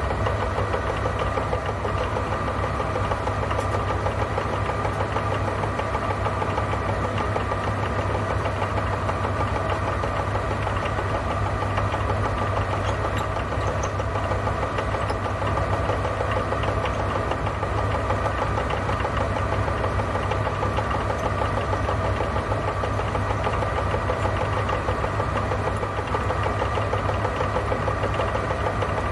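Milling machine running, its cutter feeding through a slot in a cast frame: a steady motor hum with a fast, fine chatter from the cut.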